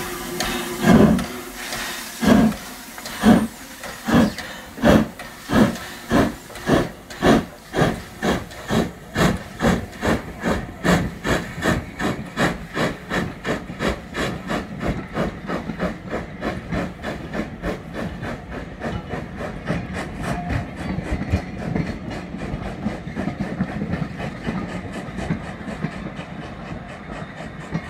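Adams O2 class 0-4-4 tank steam locomotive starting a train and pulling away. Hissing steam first, then exhaust beats about a second apart that quicken steadily to several a second as the engine accelerates. The rolling noise of the passing carriages follows and fades as the train draws away.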